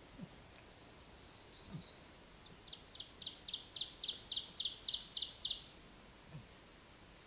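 A songbird singing: a few short high whistled notes, then a fast series of repeated two-part notes that grows louder over about three seconds and stops abruptly.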